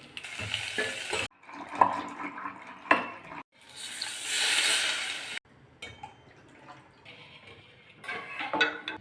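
Home-kitchen cooking sounds in short cut-together clips: steel utensils and dishes clinking and knocking, and for about two seconds in the middle a steady rushing hiss.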